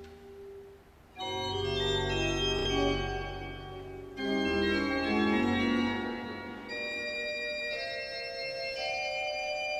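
Giroud pipe organ playing held chords. A chord fades into a brief lull about a second in, then full chords come in sharply, with a fresh loud chord about four seconds in and further chord changes after that.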